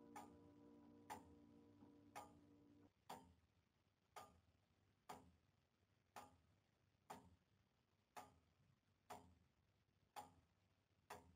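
Faint, slow ticking, about one tick a second, under a held musical chord that cuts off about three seconds in.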